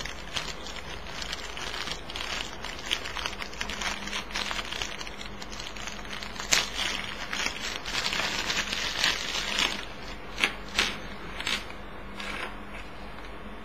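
Thin clear plastic bag crinkling and crackling as it is opened and worked off small plastic keyring parts, in quick irregular crackles that grow busier past the middle. A few sharper clicks come near the end.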